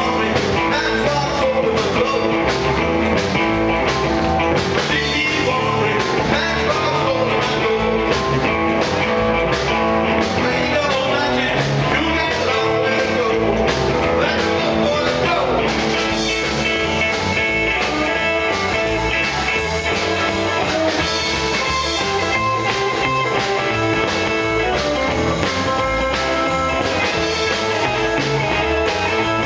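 Live rock and roll band playing: hollow-body electric guitar, drum kit with cymbals, and a lead voice at the microphone, steady and loud.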